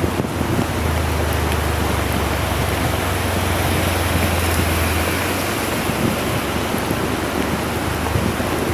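Very heavy rain pouring down in a loud, steady hiss. A low, steady hum sits underneath from about a second in and drops away a little past the middle.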